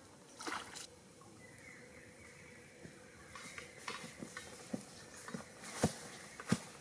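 A brief splash and slosh of stream water about half a second in, then from about three seconds in the crunch and crackle of footsteps through dry leaf litter, the steps growing louder near the end.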